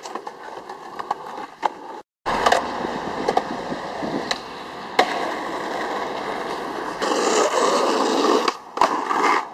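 Skateboard wheels rolling on concrete and asphalt, with several sharp clacks of the board striking the ground. The sound cuts out briefly about two seconds in.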